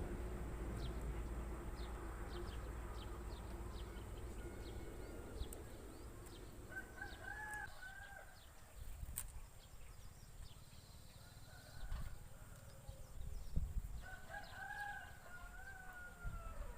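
Bird calls: two drawn-out calls, a short one about seven seconds in and a longer one of about two and a half seconds near the end, with quick faint high chirps through the first half.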